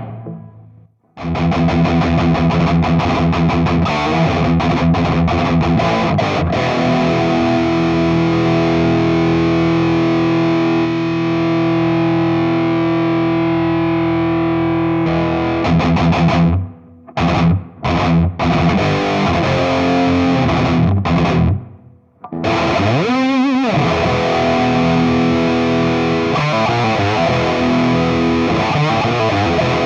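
Fender Stratocaster electric guitar played through a distorted amp model of a Nux MG300 modeling processor: held chords and single notes. The playing breaks off briefly around 17 and 22 seconds, and right after the second break a note is bent up and back down.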